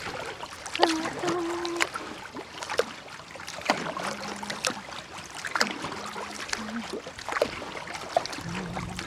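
Kayak paddling on a river: the paddle blades dip and drip, making many small splashes and drips over the water's trickle. A low steady tone comes and goes several times.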